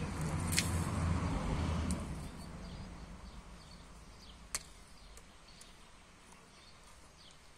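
Short-handled hand hoe chopping into dry, clod-strewn soil, with one sharp click about four and a half seconds in. A low hum fades out over the first two seconds.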